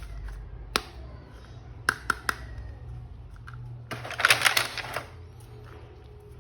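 Plastic toy action figure and its packaging being handled: a few sharp clicks, then a denser burst of clicking and rustling about four seconds in that lasts about a second.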